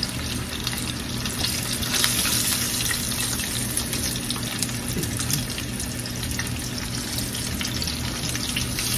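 Chicken wings frying in hot oil in a stainless skillet: a steady sizzle with scattered small crackles, a little brighter for a few seconds from about two seconds in.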